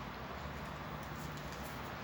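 Faint chewing and mouth clicks over a steady background hiss.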